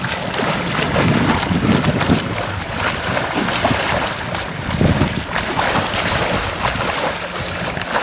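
Sea water splashing as a swimmer does front crawl, arms and kicking feet churning the surface in irregular strokes, with wind buffeting the microphone.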